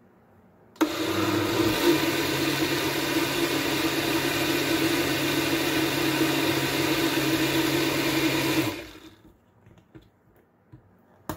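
Countertop blender motor running, pureeing a thick homemade tomato sauce with tomato paste. It starts suddenly about a second in, runs steadily for about eight seconds, then winds down.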